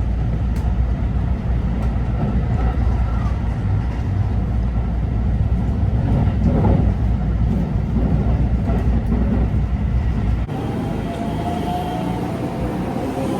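Train running, a loud, steady low rumble. About ten and a half seconds in it cuts off abruptly and gives way to quieter sound with a few thin tones that rise slowly.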